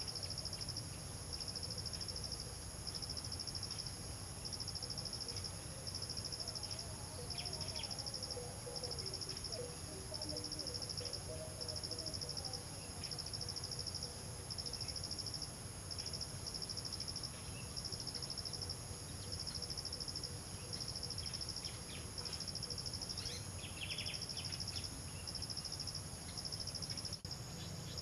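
Insects calling: a high chirping trill that pulses about once a second, over a steady high-pitched whine.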